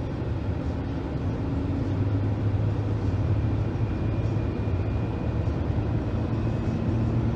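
Ford F-150 3.5-litre V6 engine running steadily as the truck is driven, a low continuous drone.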